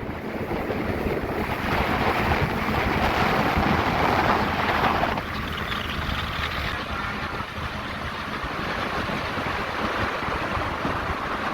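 Jet boat with a big-block Ford 460 cruising planed out: wind buffeting the microphone and water rushing past the hull as a steady noise. It is louder in the first half and eases a little about five seconds in.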